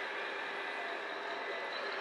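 Radio-controlled Mercedes Actros hook-lift truck model running: a steady hum with a faint high whine.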